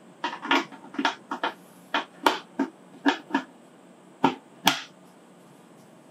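Concealed (Sugatsune LAMP slide) cabinet hinges being snapped onto their mounting plates as a door is hung: about a dozen sharp metal clicks and knocks, some in quick pairs, stopping about five seconds in.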